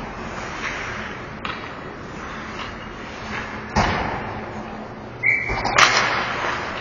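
Ice hockey play in an arena: sharp clacks and thuds of sticks, puck and boards over the hiss of skates, the loudest knocks a little under four seconds in and again near six seconds.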